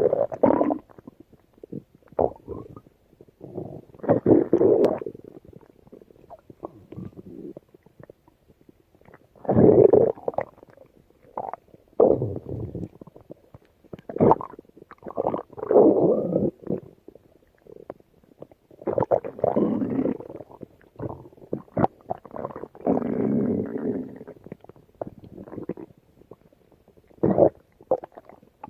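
Stomach growling and gurgling in irregular rumbling bursts of a second or two each, with quieter gaps between.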